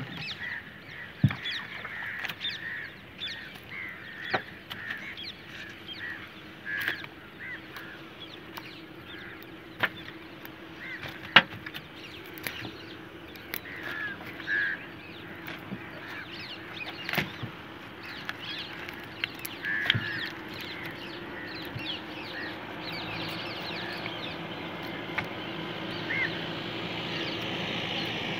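Birds calling over and over in short calls, with sharp clicks and knocks scattered through as a wet fishing net and its plastic-bottle floats are handled in the boat. A faint steady hum lies underneath.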